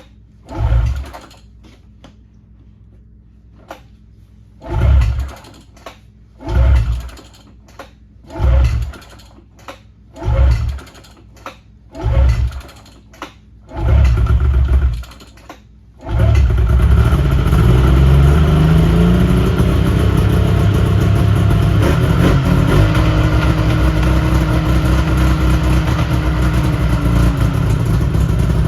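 Yamaha VMax three-cylinder two-stroke snowmobile engine being turned over in about seven short tries of about a second each, then catching about 16 seconds in and running on steadily, its pitch rising then settling. This is the first start after a carburettor clean.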